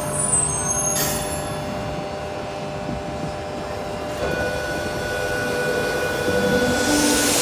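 Sydney Trains Tangara electric train standing at an underground platform with its equipment humming. There is a click about a second in, and a steady high tone sounds as the doors slide open about four seconds in. A hiss of air builds near the end.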